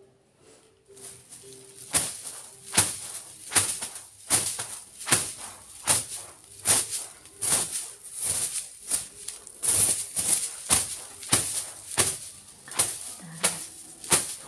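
Broom swept over a bed sheet in short, regular swishing strokes, about three strokes every two seconds, starting about two seconds in.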